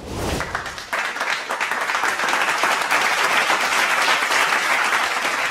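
Applause from many people clapping, swelling to full strength about a second in and holding steady.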